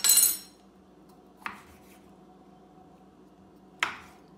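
A metal kitchen utensil clattering down on a wooden cutting board with a short ringing clink, then two single knocks of utensils on the board, about a second and a half in and near the end.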